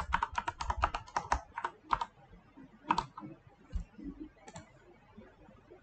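Typing on a computer keyboard, entering a string of digits: a quick run of about ten keystrokes, then a few scattered taps, one of them louder.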